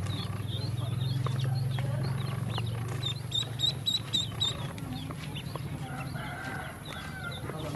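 Ducklings peeping, many short high chirps, with a run of about six louder peeps in quick succession a little past the middle. Scattered small clicks of bills pecking feed in a plastic basin, over a steady low hum.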